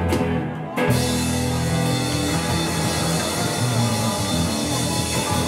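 Live rock band of electric guitars, bass guitar and drum kit playing. About a second in a loud hit lands, and then a long held chord rings on with a wash of cymbals.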